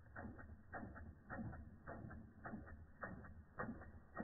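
Small Ernst Plank Tripod model steam engine (a replica) running slowly and evenly. It makes a quiet, regular double tick, about two pairs of clicks a second.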